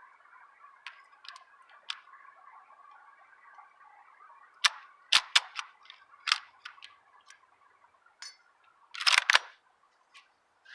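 Sharp clicks and clacks, a few spaced out over a second or two, then a quick cluster near the end, over a faint steady high hum.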